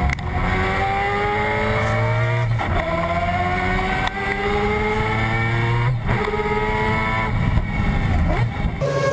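Mazda 787B's R26B four-rotor rotary engine heard from the driver's seat. It revs up through the gears, its pitch climbing steadily and dropping back at each of several upshifts. Near the end it gives way to a steadier high note as the car comes by on a flyby.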